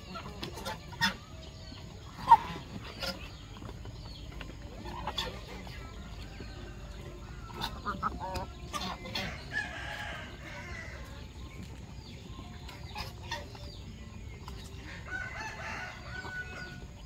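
Flock of chickens clucking as they feed from a grain basket, with many short sharp pecking clicks and a loud sharp sound about two seconds in. A rooster crows twice, about halfway through and again near the end.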